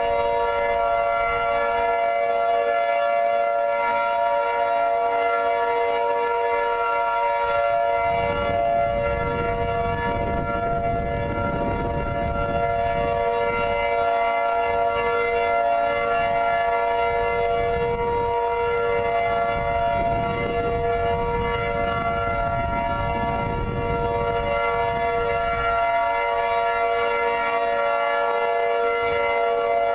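Outdoor tornado warning siren sounding a steady tone at full pitch during a test, several notes held together without rising or falling. A low rumble comes in underneath for much of the middle.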